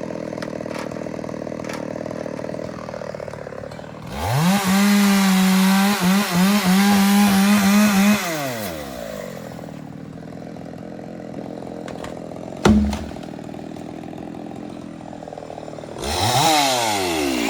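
Chainsaw idling, then revved to full throttle about four seconds in and held for some four seconds before falling back to idle. A sharp knock comes partway through, and the saw revs up again near the end.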